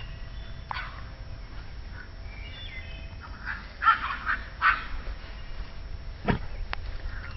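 Puppies yipping as they play, a few short, high yips close together around the middle.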